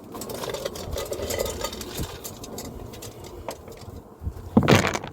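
Loose smoker fuel, wood pellets mixed with compressed paper chips, being stirred and handled, giving a steady rustle with small clicks. A louder, brief rustle comes near the end.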